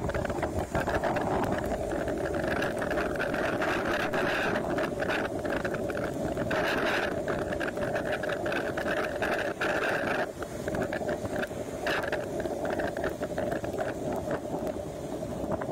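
Storm wind and rain, with cars driving through standing water on the wet road, their tyres hissing and throwing up spray.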